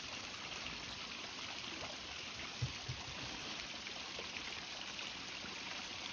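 A small stream running steadily over a little waterfall, an even rushing of water. A couple of brief low thumps come about two and a half to three seconds in.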